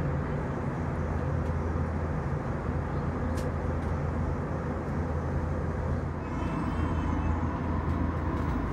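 Steady cabin noise of an Airbus A321 in its climb after take-off: a deep engine drone under the rush of air past the fuselage. A single faint click comes about three and a half seconds in.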